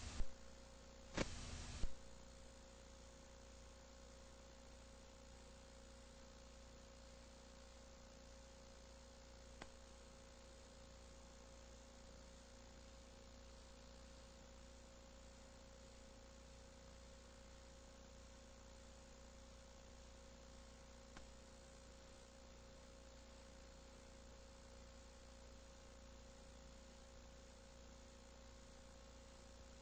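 Near silence: faint videotape hiss with a steady electrical hum, broken by a few short bursts of noise in the first two seconds as the recording glitches over.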